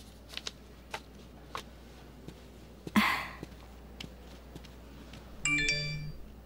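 Smartphone message-notification chime near the end, a short electronic tone lasting under a second. Earlier there are a few faint clicks and, about three seconds in, a sudden sharp swish.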